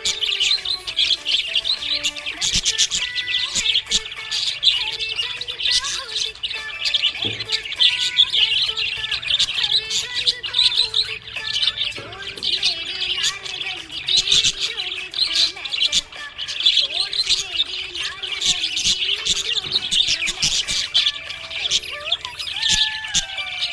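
Small pet parrots chirping and chattering without a break: a dense stream of quick, high chirps.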